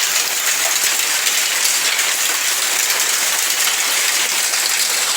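Hailstorm: hailstones and heavy rain pelting down in a dense, steady clatter of countless small impacts.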